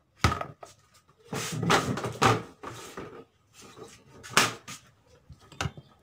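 Plastic casing and lid of a twin-tub washing machine being handled and pried open: a sharp knock about a quarter second in, then scraping and rattling, and another loud knock about four and a half seconds in.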